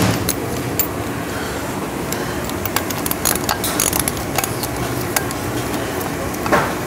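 Hand ratchet clicking in short, irregular runs as nuts are run down onto the studs holding the Mud Buddy Sport V mud motor's drive housing, over a steady background hum. A louder knock comes near the end.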